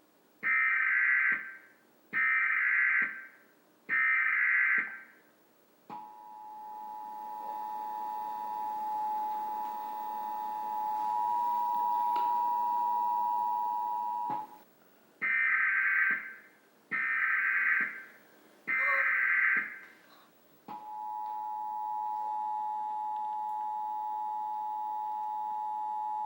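Emergency Alert System tones: three harsh digital data bursts of about a second each, then the two-tone attention signal held steady for about eight seconds. A second set of three bursts follows, and the two-tone attention signal starts again a few seconds later.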